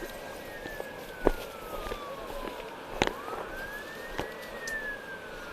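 Emergency-vehicle siren on a wail setting: it rises quickly in pitch, then falls slowly, and the cycle repeats about every four seconds. A few sharp knocks sound over it, the loudest about a second in and about three seconds in.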